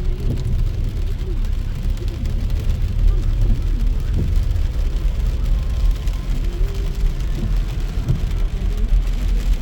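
Inside a car driving in heavy rain: a steady low rumble of road and engine noise, with rain hitting the car.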